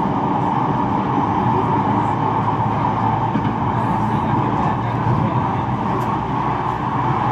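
Manchester Metrolink tram running at speed, heard from inside the passenger car: a steady rumble and drone of the running tram.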